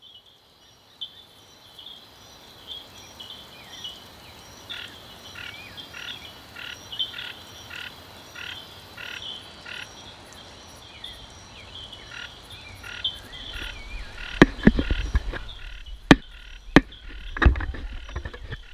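A chorus of frogs calling, short high calls repeating about twice a second over a dense steady trill. About fourteen seconds in, loud sharp knocks and a low rumble of wind and water from a boat at sea join the chorus.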